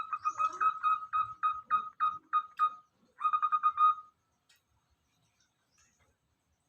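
Zebra dove (perkutut) calling: a rapid run of about a dozen short cooing notes, a brief pause, then a quicker run of about seven notes.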